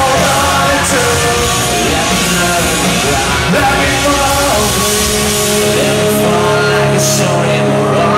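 A live rock band plays a song, with a male lead singer's voice over guitars and drums. Long held notes come in the second half.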